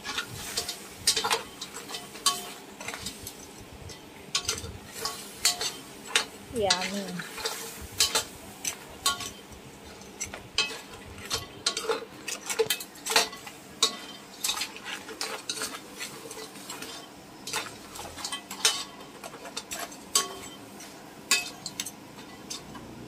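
Metal ladle scraping and clinking against a stainless steel wok as crabs and shrimp are stirred, with frequent irregular knocks of the shells and utensil. A soft sizzle runs underneath.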